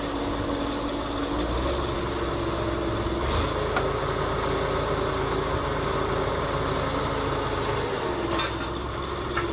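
Truck-mounted crane's engine running steadily while the boom is worked, its pitch stepping up twice and dropping back about eight seconds in. Two brief clinks, about three and eight seconds in.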